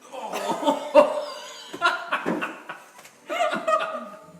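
Laughter in three bursts, with a short sharp thud about a second in.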